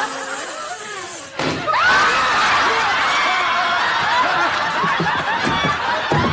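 A single sudden bang about a second and a half in, then a studio audience laughing.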